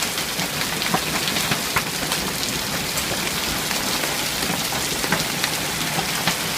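Heavy rain mixed with hail pouring down, a steady rush with scattered sharp clicks of hailstones striking hard surfaces.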